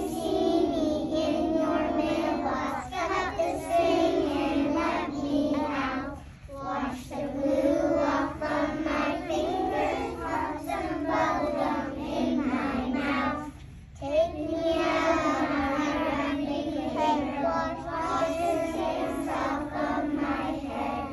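A group of young children singing a song together in unison, with brief breaks between phrases about six seconds in and again near fourteen seconds.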